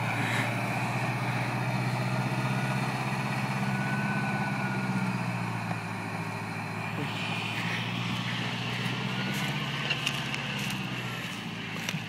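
Massey Ferguson tractor's diesel engine running steadily while pulling a plough, growing quieter toward the end.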